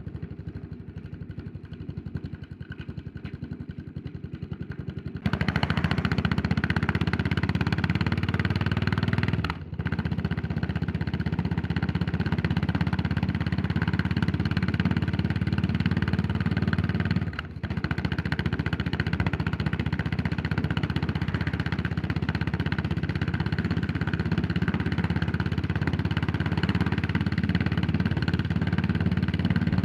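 Yamaha SR400's single-cylinder engine running quietly at low revs for about five seconds, then suddenly much louder as the bike rides under throttle, dropping briefly twice along the way.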